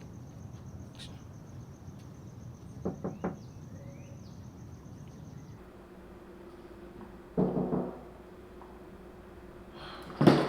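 Crickets chirping steadily, with two light knocks about three seconds in. The crickets cut off suddenly, then a quick run of knocks, like knocking on a door, comes about seven seconds in, and a louder knock or bang comes near the end.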